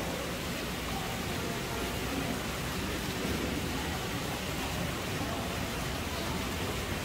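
Steady hiss of background noise, even and unchanging, with no distinct sounds standing out.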